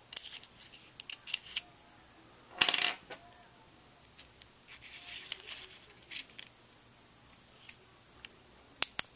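Flashlight diffuser being fitted over the flashlight head by hand: scattered light clicks and taps, a louder clatter about two and a half seconds in, soft rubbing in the middle, and two sharp clicks near the end.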